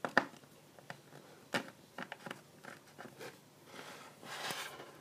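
Small plastic toy figures and playset pieces being handled. There are a few light clicks and taps, the sharpest just after the start, then a soft scraping rustle near the end.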